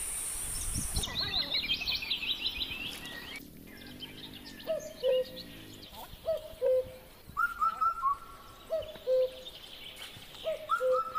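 Birds calling: a quick run of high chirps at first. After a few seconds a repeated low two-part call, a short hooked note then a held note, comes about every second and a half, and higher whistled phrases join it twice.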